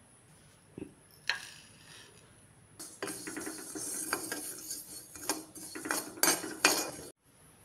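Steel spatula scraping and stirring seeds in a black iron kadai, the seeds rattling against the pan, with a few louder clanks near the end before the sound cuts off suddenly.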